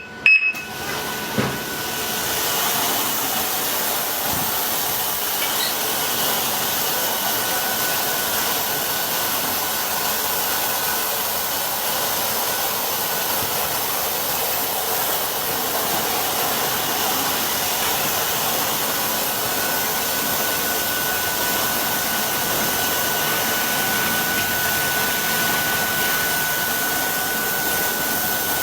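Automatic car-washing machine running with a steady, even whooshing noise, with a faint thin high whine on top.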